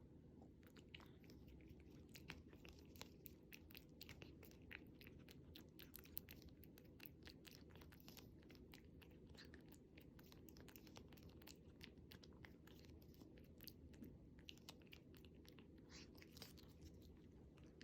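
Cat biting and chewing at a Churu squeeze-tube treat: many faint, irregular wet clicks and smacks of its mouth.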